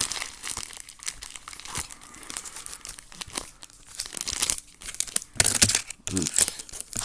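Foil trading-card packs crinkling and rustling as they are picked up and moved by hand, in uneven spells of crackling, loudest about five seconds in.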